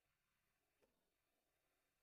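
Near silence, with one very faint short tick a little under a second in.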